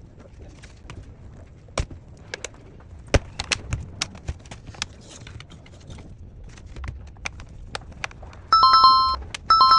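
Scattered light clicks and knocks of handling. Near the end, two loud electronic beeps, each a steady two-note tone about half a second long, about a second apart.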